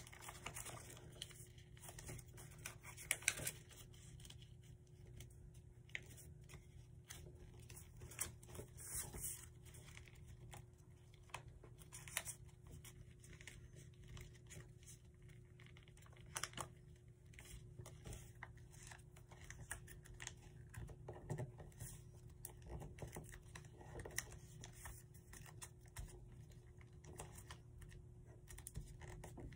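Origami paper rustling and crinkling softly as hands fold it and press the creases flat, in scattered short crackles, a few louder ones about 3 and 9 seconds in. A faint steady hum runs underneath.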